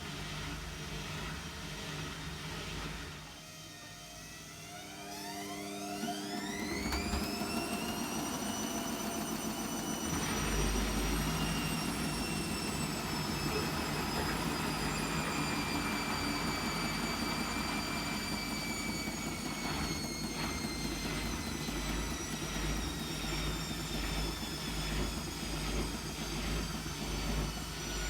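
Hotpoint WMFUG742 washing machine, loaded with towels, ramping up into a spin: after a brief lull a few seconds in, the motor whine climbs steeply in pitch, then holds high and slowly sags, over a low pulsing rumble from the heavy drum.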